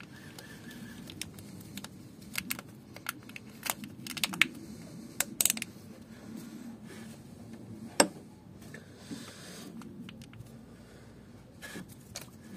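Scattered clicks and taps of hands working hose connectors and clips around a diesel tandem pump, with one sharp click about eight seconds in.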